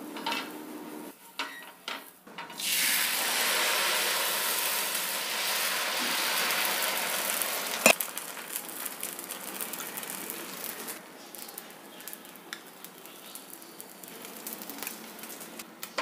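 Dosa batter sizzling on a hot tawa: a loud, even sizzle starts suddenly about two and a half seconds in and eases off after a sharp clack about halfway through. A softer, crackling sizzle with small ticks follows, and a glass lid clatters onto the pan at the very end.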